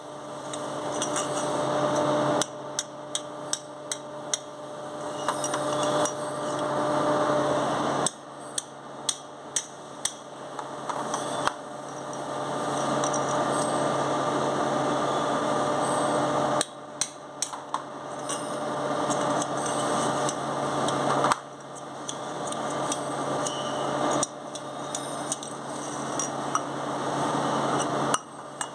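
Hammer blows on an aluminium drift pipe, driving the angular contact bearings out of a spindle cartridge: sharp metallic taps in short clusters, a few at a time, with pauses between. A steady background hum runs under them.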